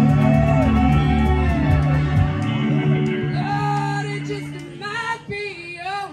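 Live blues-rock band: a held low chord under electric guitar notes bending up and down, fading away over the last couple of seconds, with a voice coming in near the end.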